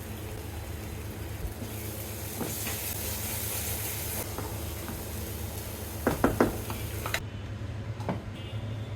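Food cooking in a pan, a low steady sizzle over a hum, with a few quick clattering knocks of utensil on pan about six seconds in.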